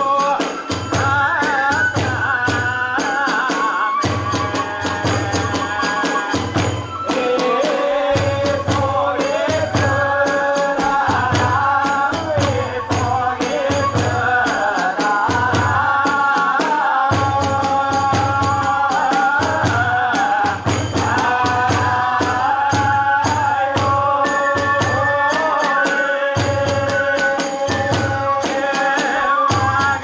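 Hiroshima kagura hayashi music: big and small taiko drums beating a steady pulse, tebyoshi hand cymbals clashing rapidly, and a fue flute (possibly joined by chanted kagura song) carrying a wavering melody over them.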